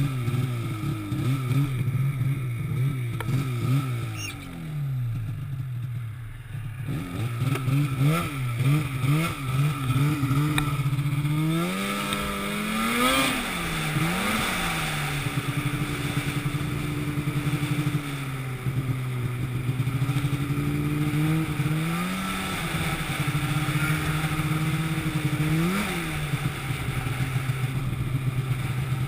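An engine running, its pitch rising and falling constantly as the load or throttle changes, with a sharp rev-up about twelve seconds in.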